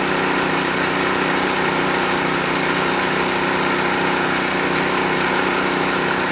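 Engine of a machine-driven well-drilling rig running steadily at constant speed.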